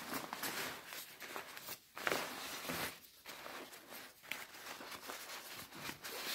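Thin plastic raincoat crinkling and rustling as a gloved hand gathers and squeezes its folds, in irregular bursts with a couple of short pauses.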